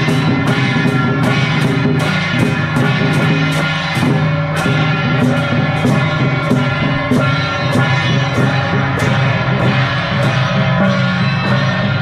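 Temple procession troupe playing: hand cymbals clashing steadily about three times a second together with drums, under a sustained wind-instrument melody.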